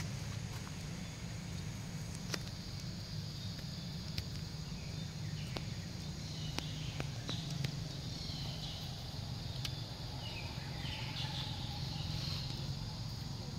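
Outdoor ambience: a steady low hum with scattered sharp clicks, and high chirping calls in the second half.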